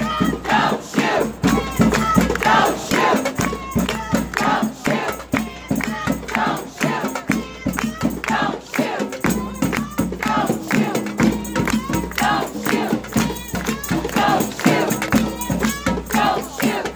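A crowd of protesters chanting together in a steady rhythm, with sharp beats keeping time.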